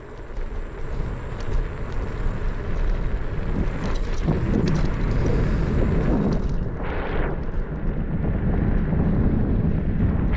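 Vehicle driving along a road: a steady low rumble of road and wind noise, with a brief hiss about seven seconds in.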